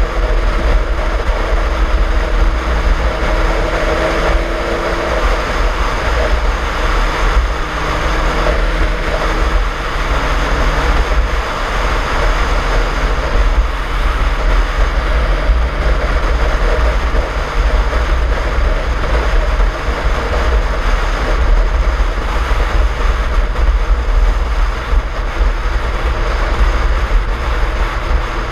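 1989 Suzuki GSX-R 1100's inline-four engine running at a steady cruise under heavy wind rumble on the microphone; the engine note changes pitch about ten seconds in.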